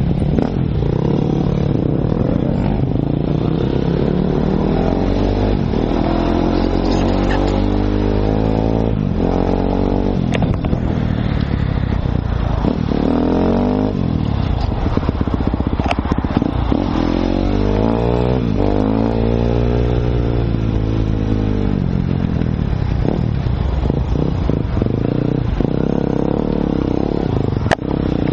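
Enduro dirt-bike engine running under the rider, its pitch rising and falling repeatedly as it revs up and shifts through the gears.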